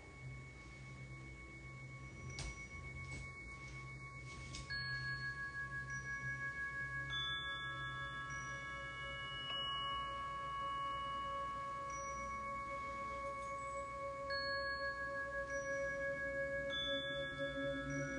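Ambient music of long, ringing bell-like tones, a new note entering every few seconds and holding over the others so that the sound slowly builds and grows louder.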